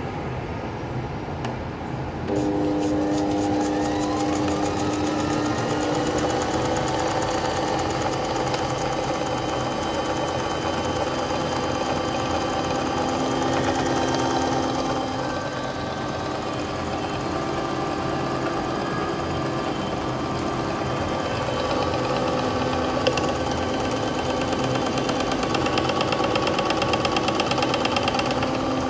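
Countertop appliance's electric motor starting about two seconds in with a rising whine as it spins up, then running steadily with a humming, whining drone. The drone eases off around the middle and picks up again, with a single click later on.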